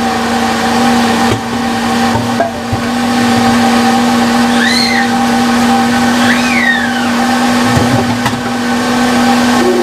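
Countertop blender running steadily at full speed, puréeing a green broccoli cheese sauce. It gives a constant motor hum.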